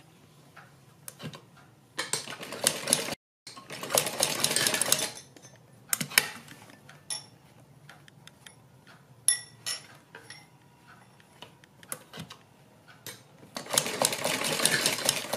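Sewing machine stitching in three short runs, one near the start, one about four seconds in and one near the end, with quiet pauses between holding scattered light clicks as the fabric is turned and repositioned.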